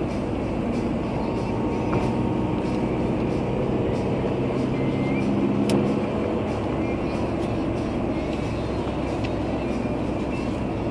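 A moving car heard from inside the cabin: a steady low hum of engine and tyres on the road, a little stronger around the middle, with a couple of sharp clicks.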